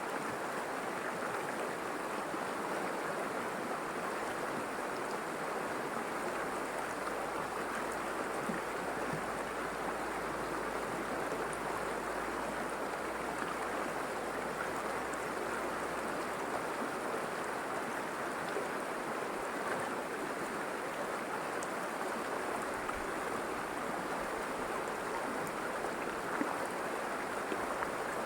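River water running steadily over rocks, a continuous even rushing with small splashes and ticks in it.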